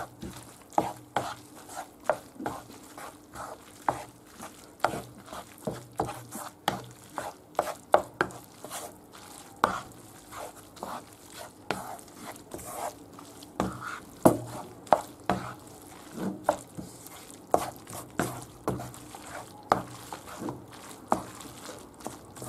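Wooden spoon stirring and tossing spaghetti carbonara in a frying pan off the heat, knocking against the pan in an irregular run of taps, about two a second.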